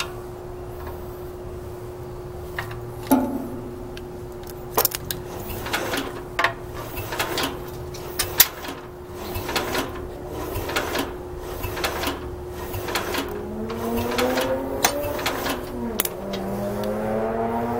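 Metal clicks and knocks from a jumper-cable clamp and tools being handled on a Bolens 1050's starter-generator, over a steady hum. Later a rising whine as the starter-generator spins the engine over during a spark check, which the owner believes shows no spark.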